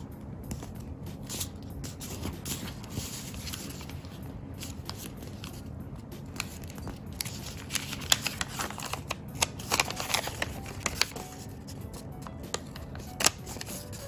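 Square of origami paper rustling and crinkling as it is folded and creased by hand, with short crisp crackles that cluster past the middle. Soft background music runs underneath.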